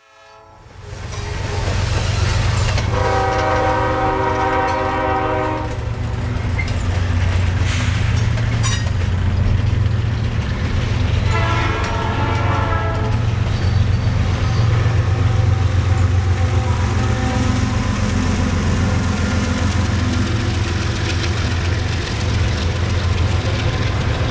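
CP ES44AC diesel locomotive leading a long intermodal freight past at speed: a steady low rumble of engines and rolling cars. The horn sounds twice over it, a blast of nearly three seconds about three seconds in and a shorter one of under two seconds about eleven seconds in.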